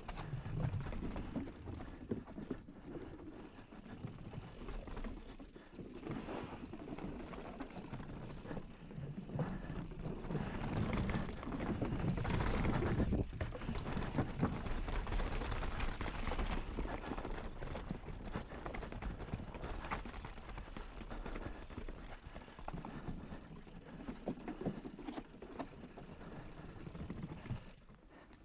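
Mountain bike rolling fast over wooden boardwalk slats and cobbled rock: tyres drumming and clattering on the wood and stone, with the bike's chain and frame rattling, loudest about halfway through.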